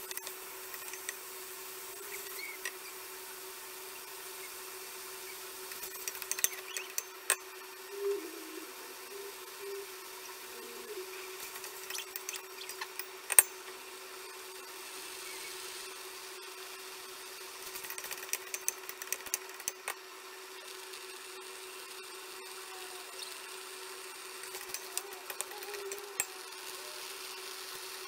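Wooden spoon scraping and knocking against a stainless steel pot as chopped strawberries are stirred, in a few short clusters of clicks with one sharp knock about halfway through, over a steady low hum.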